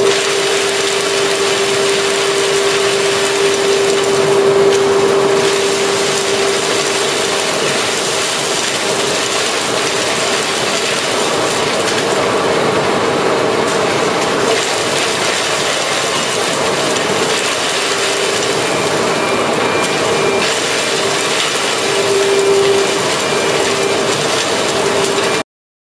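Ice slurry handling machinery running: a continuous dense mechanical rattle over a steady hum that wavers in places. It cuts off abruptly near the end.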